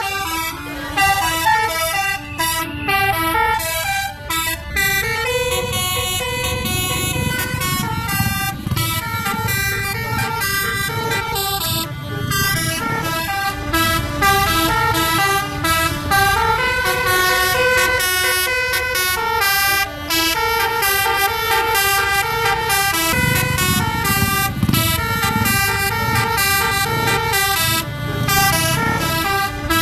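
Bus telolet horn, a set of multi-tone air horns, playing a running tune of stepped horn notes that rise and fall. A low rumble of engine and road noise runs underneath.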